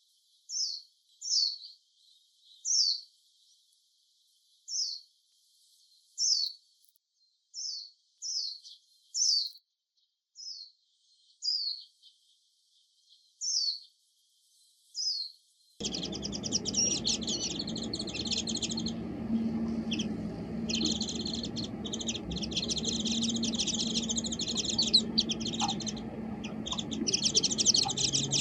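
Japanese white-eyes calling: about a dozen short, high, falling call notes, one every second or so. About halfway through they give way to a dense, rapid, high twittering chatter that runs on continuously.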